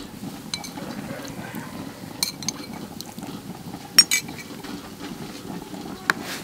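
Liquid poured into a metal wok of broth and stirred, with a few sharp clinks of utensils against the wok; the loudest clink comes about four seconds in.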